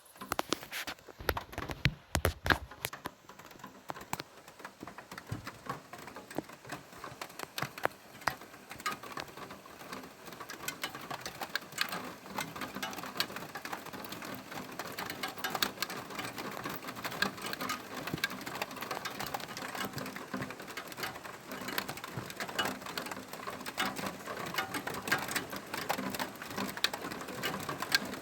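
Rain pattering on a hard surface close to the microphone, individual drops ticking, growing steadily heavier and denser. A brief low rumble about two seconds in.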